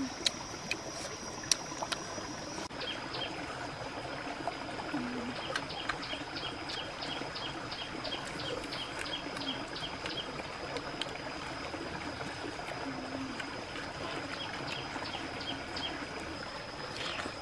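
Water in a rocky stream running steadily, with a thin, steady high whine over it. Short high chirps repeat about three a second for several seconds in the middle and again briefly near the end. A few faint clicks come and go.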